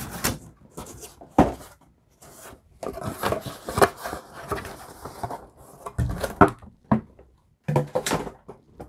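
Cardboard shipping box being unpacked by hand: flaps pushed back and a boxed vinyl figure slid out, with cardboard scraping and rustling and several sharp knocks.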